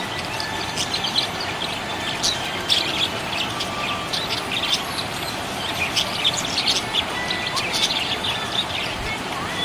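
Small pet parrots chirping busily: a dense, continuous run of short, high chirps and twitters over a steady background hiss.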